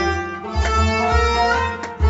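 Instrumental passage of Kashmiri Sufiana music: harmonium holding steady notes, with bowed and plucked strings over a hand drum keeping a deep, even beat about twice a second.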